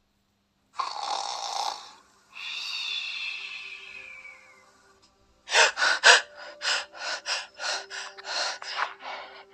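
A person breathing noisily: a rough intake of breath, a long breath out with a whistle that falls in pitch, then about ten quick gasping breaths, two or three a second.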